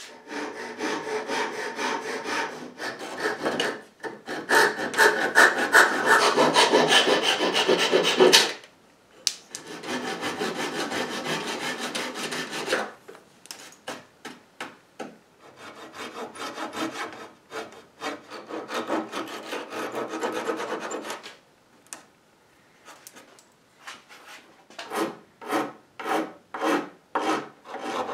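Hand file rasping back and forth across a wooden patch in a crown molding, trimming it flush. Long runs of quick scraping strokes give way near the end to slower, separate strokes, about two a second.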